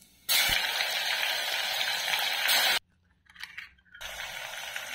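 Hot oil sizzling loudly as a spoonful of green paste drops into it among bay leaves and whole spices. The sizzle starts suddenly, cuts off abruptly partway through, and comes back quieter near the end.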